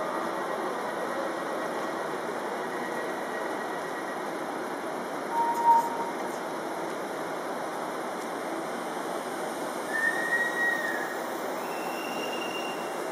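Newag Impuls electric multiple unit standing at the platform with a steady hum from its running onboard equipment. A brief high tone sounds about five and a half seconds in, and another, slightly gliding, about ten seconds in.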